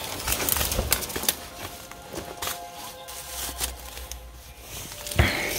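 Footsteps and handling in dry debris: irregular clicks and crackles, with one sharp knock about five seconds in.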